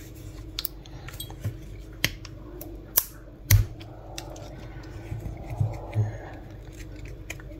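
Scattered small clicks and taps of a screwdriver and the metal key blade against the plastic case of a Chevrolet flip-key fob being worked open, with two sharper clicks about three seconds in.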